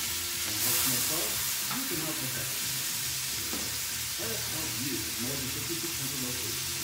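Food frying in a pan on the stove: a steady sizzle, a little louder about a second in.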